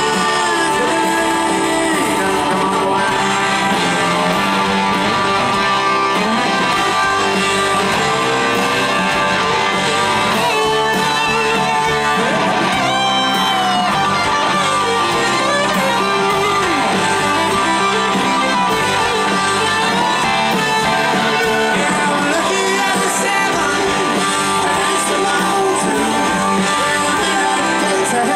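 Live Southern rock band playing an instrumental break: an electric guitar lead with bent, sliding notes over drums, bass and keyboards.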